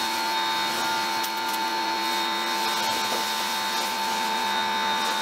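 Teande 2300 PSI electric pressure washer running under load while spraying: a steady motor-and-pump whine with several held tones over the hiss of the water jet.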